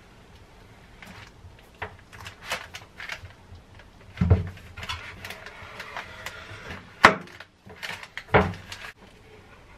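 Chef's knife cutting and handling a sheet of puff pastry on baking paper over a wooden board: soft scrapes, paper rustles and light taps, with three sharp knocks about four, seven and eight and a half seconds in.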